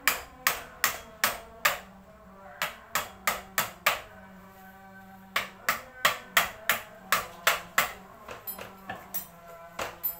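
Sharp metal-on-metal strikes in three quick runs, about three a second, each with a short ring, then lighter taps near the end: a tool knocking at a motorcycle's front brake caliper to free a part that is stiff to undo.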